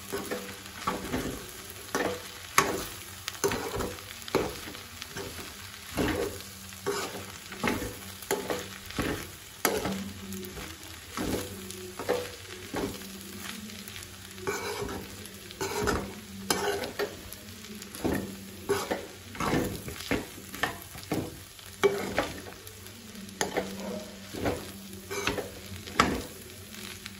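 Metal spoon stirring and scraping pasta and vegetables around a pan, in repeated strokes about once or twice a second, over a faint sizzle of the food frying.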